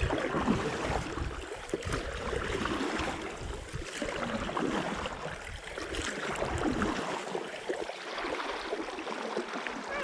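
Water swishing and gurgling against a stand-up paddleboard and its paddle as it is paddled through calm shallows, rising and falling in uneven swells.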